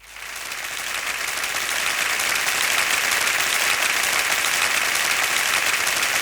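Crowd applause: many people clapping together, swelling over the first two seconds and then holding steady.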